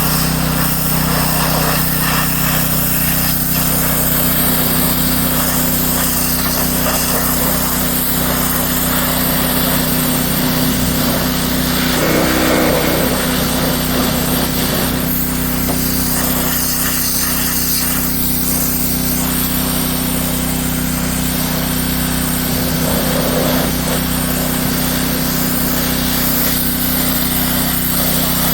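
Small gasoline engine of a pressure washer running steadily at constant speed, with a brief swell in the sound about twelve seconds in.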